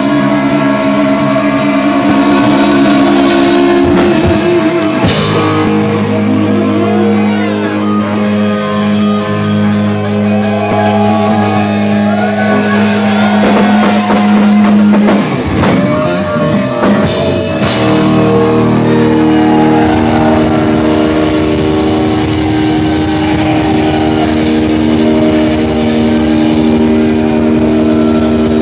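Live rock band playing loud: two electric guitars and drums, with long held chords that change every few seconds.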